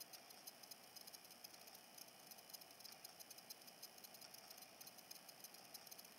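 Near silence, with a faint, rapid high ticking throughout.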